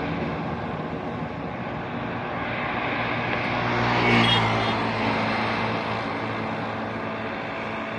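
Road traffic ambience: a steady wash of traffic noise with one vehicle passing close, its engine hum growing louder to a peak about halfway through and then fading away.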